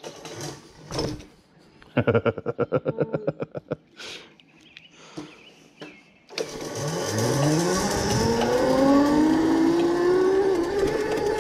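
A 36-volt, 1000-watt electric minibike motor pulls away hard, its whine rising steadily in pitch as the bike accelerates. The whine sits under a loud rush of wind and rolling noise that starts about six seconds in. Before that there is a brief rapid rattle of evenly spaced clicks, about two seconds in.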